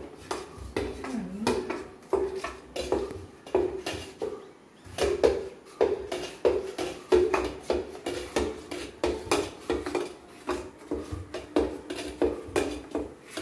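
A steel spoon clinking and scraping against the inside of a stainless steel container, about two to three strikes a second, each with a short metallic ring.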